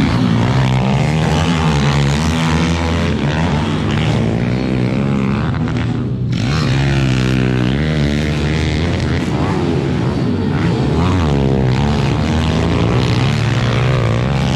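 Pit bike engines racing on a dirt track, several small four-stroke single-cylinder engines revving up and down at once, their overlapping pitches rising and falling as the riders accelerate out of and slow into corners.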